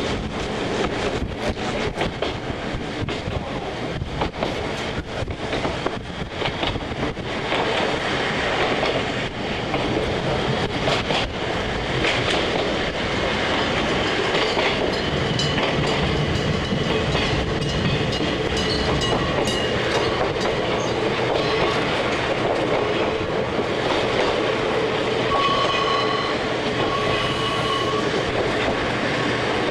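A Kumamoto Electric Railway 5000 series electric railcar running, heard from inside the car: the wheels click over rail joints, thickly in the first half. In the second half the running is steadier, with high whining tones that come and go.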